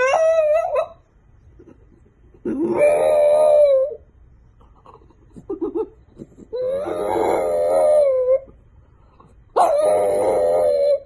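French bulldog howling with its muzzle raised: four drawn-out, slightly wavering howls with short pauses between them, the first rising in pitch as it starts.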